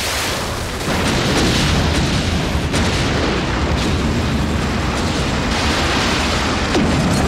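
Sound effect of a large explosion: a sudden boom that swells about a second in into a long, steady rumbling roar.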